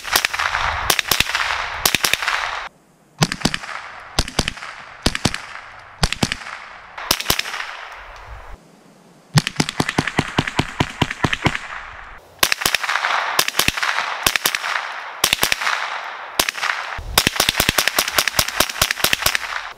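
Marlin Model 60 .22 LR semi-automatic rifle fired rapidly in quick strings of shots, several a second, with short breaks between strings. Each shot is a sharp crack with a short ring-out.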